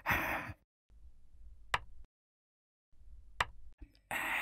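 Two sharp clinks about a second and a half apart as small clay cups and pots are handled on a bamboo table, followed near the end by a brief rush of hissing noise.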